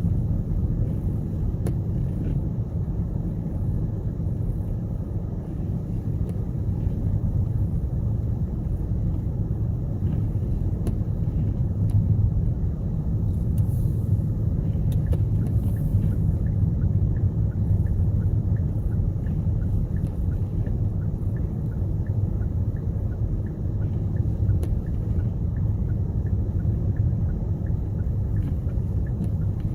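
Car driving, a steady low rumble of engine and tyre noise from the road.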